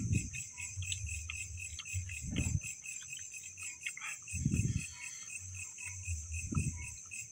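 Crickets chirring steadily in a fast, even pulse, a night insect chorus, with four dull low thuds spaced about two seconds apart.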